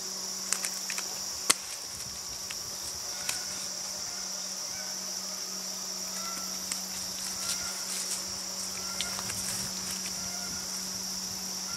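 Steady outdoor insect chorus, a continuous high shrill drone, with a low steady hum underneath and a few faint clicks and short chirps scattered through.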